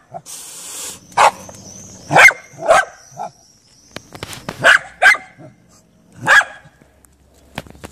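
A dog barking off-screen: a series of short, sharp barks, some in quick pairs, aimed at a frightened cat that stands its ground with its fur bristling.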